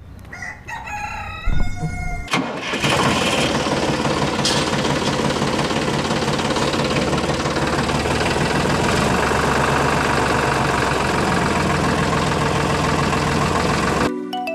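A rooster crows, then an engine starts about two seconds in and runs steadily.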